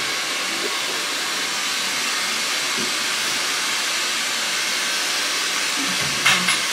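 A steady rushing hiss of blowing air, even and unbroken throughout.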